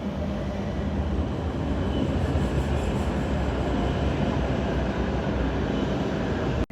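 Train running, a steady rumble of wheels and motors that grows slightly louder.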